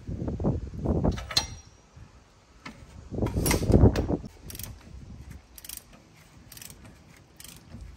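Ratchet wrench clicking in two short bursts of strokes as a bolt is tightened, then lighter scattered clicks.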